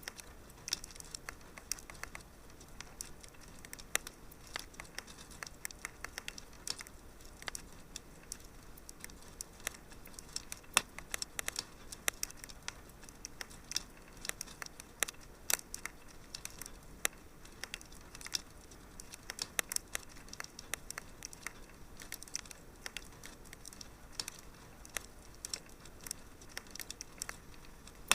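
Wood fire crackling in a fireplace: irregular sharp pops and snaps, several a second, over a faint steady background.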